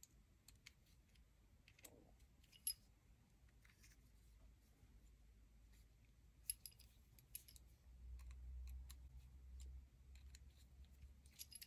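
Near silence, with faint scattered clicks and ticks of small parts being handled as the motor mount of a Kyosho Mini-Z mini RC car is adjusted. The clearest click comes about 2.7 seconds in, a few more come past the middle and near the end, and a faint low rumble runs for about two seconds past the middle.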